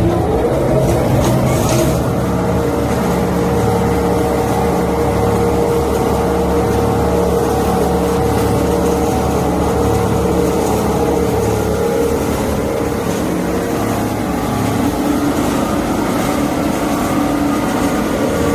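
Loud, steady mechanical drone of running machinery, with a constant hum held at fixed pitches throughout.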